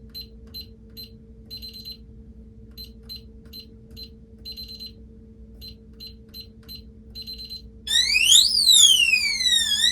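Digital keypad of a gun safe beeping with short high beeps as a wrong code is punched in again and again, with a longer beep after each code. About eight seconds in, the safe's anti-tamper alarm goes off: a loud electronic siren sweeping up and down in pitch, set off by more than three wrong codes.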